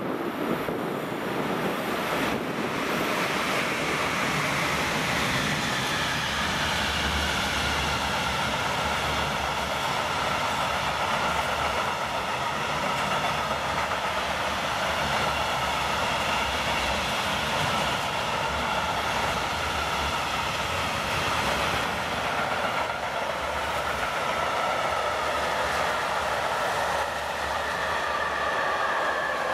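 Freight train rolling past close by, a long rake of hopper, open and tank wagons running on the rails with a steady rumble. Over it sound several high ringing tones that drift slowly in pitch.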